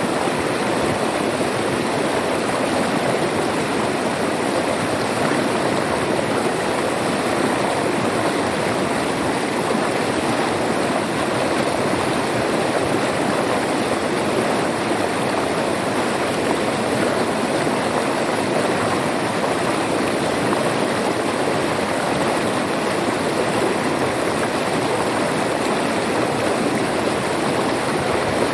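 River water flowing and splashing in a steady, continuous rush.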